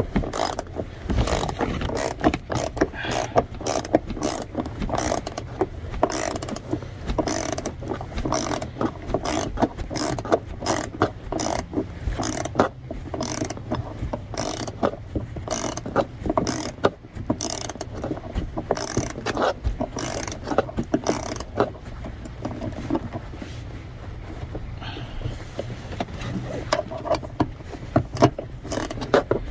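Hand ratchet wrench clicking in quick, uneven runs as a seat-belt harness anchor bolt is turned with a 14 mm socket, with a short lull about two-thirds of the way in.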